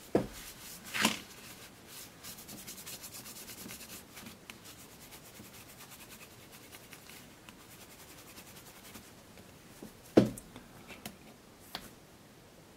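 A cotton pad is rubbed back and forth over the printed key-contact pads of the Casio VL-1's keyboard circuit board: fast, even wiping strokes that fade away after a few seconds. About ten seconds in comes a single thump, then a couple of light clicks.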